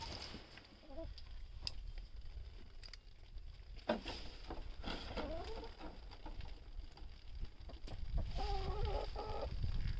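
Chickens clucking, with a wavering call about four seconds in and another near the end, and a few light knocks.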